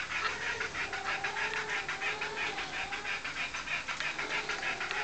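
A dog panting rapidly and steadily, about four to five breaths a second.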